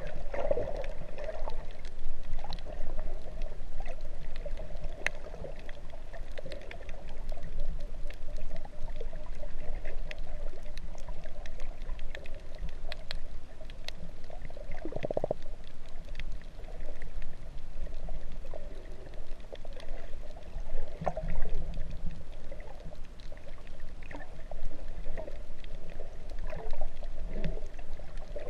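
Underwater sound heard through a GoPro's waterproof housing: muffled water sloshing and gurgling over a low rumble, with scattered faint clicks.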